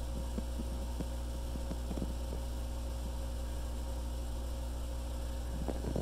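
Steady low electrical hum with a few faint taps. No pump is heard: the submersible pond pump that has just been switched on stays off, because its GFCI outlet was left tripped.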